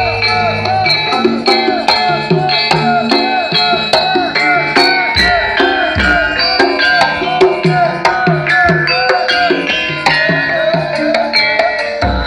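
Loud music with quick hand-drum percussion, played through a large stacked sound system of homemade speaker cabinets.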